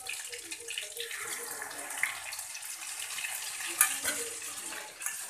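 Marinated chicken pieces sizzling steadily as they fry in hot oil in a steel wok. A sharp metallic clink of a utensil comes about four seconds in.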